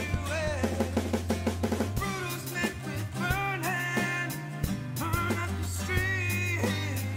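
Rock song playing: drum kit over a steady bass line, with a quick run of drum hits in the first two seconds.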